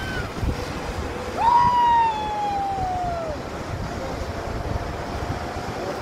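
Fast mountain river rushing over rocks, with wind on the microphone. About a second and a half in, a loud, long, high tone jumps up and then slides slowly down in pitch for nearly two seconds.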